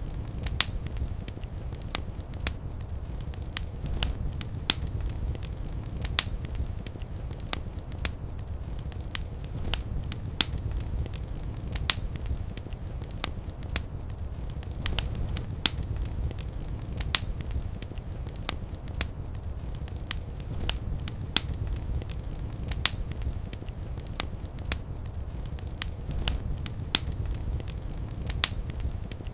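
Fire in a fireplace crackling: irregular sharp pops and snaps, several a second, over a steady low rumble of the flames.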